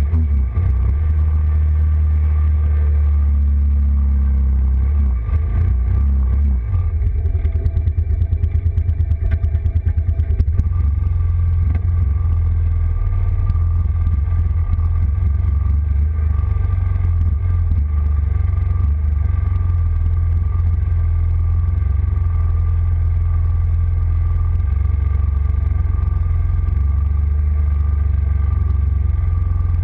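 ATV engine running as the four-wheeler drives through muddy water and grass, heard from a camera mounted on the machine, with a heavy low rumble. For a few seconds about a quarter of the way in, the sound pulses rapidly.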